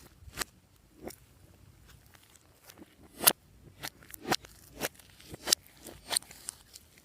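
Glossy slime being worked by hand, giving an irregular run of sharp clicking pops, about nine in all. The loudest comes a little after the middle.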